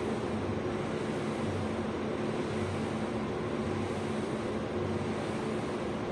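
A running air conditioner: a steady rush of air with a low, even hum.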